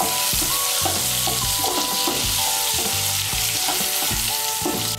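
Boiled potato chunks sizzling as they fry in hot oil in a kadai. A spatula stirs them, with short scrapes against the pan.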